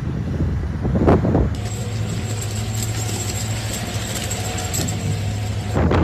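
Blizzard wind buffeting the microphone, with a strong gust about a second in. It then cuts abruptly to a steady low hum with light rattling ticks, and the wind noise comes back just before the end.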